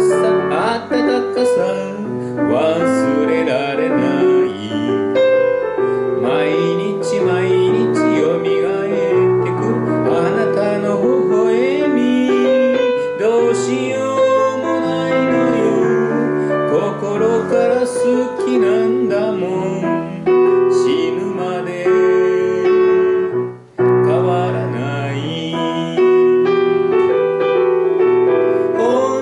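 A woman singing a slow folk ballad into a microphone, accompanied by piano.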